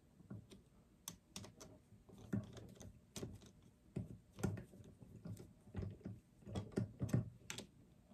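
Light irregular clicks and taps, about two a second, of a 5/16 nut driver being turned and regripped as it snugs up the fuel bowl screws on a Holley 4150 carburetor.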